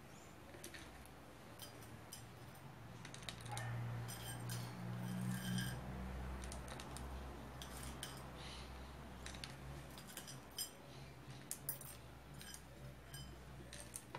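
Light clicks and taps of whole dried cloves and loose herbs dropped by hand into a plastic shampoo bottle, with faint clinks of small stainless steel bowls, over a low hum that swells for a couple of seconds about four seconds in.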